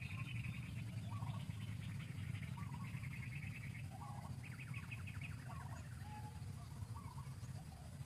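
Background birds chirping, with short calls about once a second and quick trills, over a steady low rumble.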